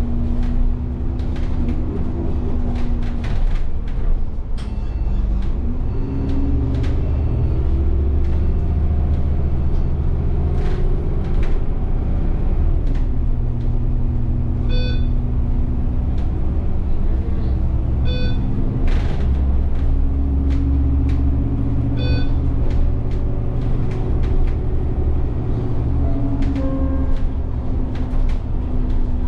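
Alexander Dennis Enviro400 double-decker bus heard from inside, its engine running with a pitch that rises and falls as it slows and pulls away. A short electronic beep sounds three times midway.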